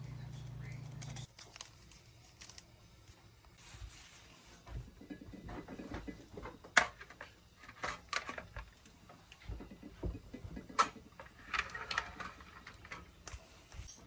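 A steady low hum cuts off about a second in, followed by scattered light clicks, taps and knocks of kitchen utensils and containers being handled while making coffee.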